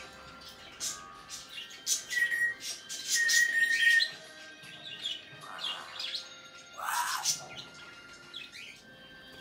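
African grey parrot making a string of its vocal noises: clicks, a short steady whistle about two seconds in and a longer one just after, then two short breathy calls in the second half.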